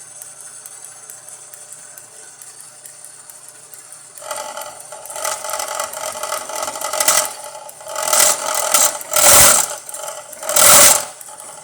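1929 South Bend lathe running, with an end mill in an ER25 collet holder starting to cut into the workpiece about four seconds in. The cutting noise comes in rising, uneven surges, loudest in the last few seconds, a cut the machinist thinks may be taking a little too much.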